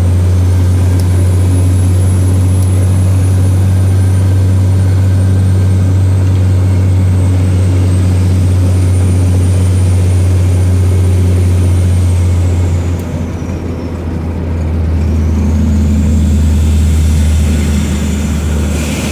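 Turbocharged vehicle engine pulling steadily uphill, heard from inside the cab, with a high turbo whistle over a deep drone. A little over halfway through, the engine eases off and the whistle falls away. It then builds up again as the drone comes back at a lower pitch.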